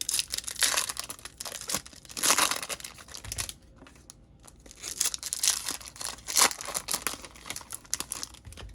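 Topps Chrome trading-card pack wrappers being torn open and crinkled, in a string of irregular rustling bursts.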